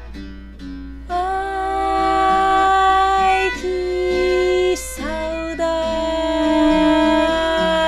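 Live acoustic trio music: a few plucked guitar notes, then, about a second in, long held melody notes entering over the plucked accompaniment, with a second held phrase starting about halfway through.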